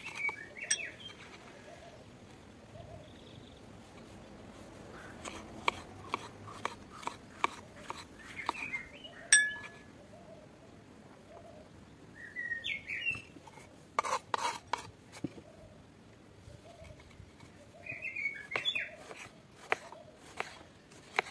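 Kitchen knife slicing green peppers and tomatoes on a wooden cutting board: runs of short taps, with birds chirping several times and one sharp clink about nine seconds in.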